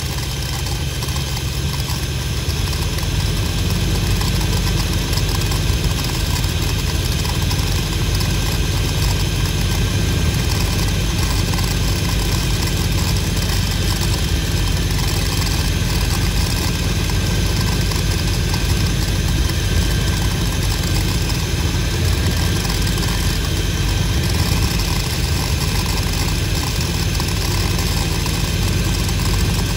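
1969 Dodge D200 pickup's engine idling fast on a Carter AFB four-barrel carburetor, getting a little louder a few seconds in and then running steadily. The idle is set very high to keep the engine from stalling while the idle mixture screws are turned.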